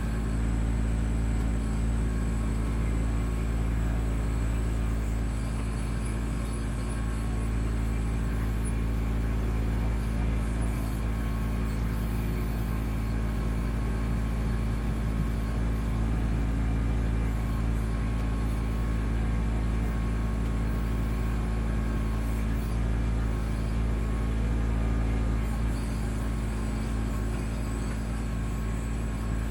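Kubota B2650 tractor's three-cylinder diesel engine running steadily while powering the BH77 backhoe.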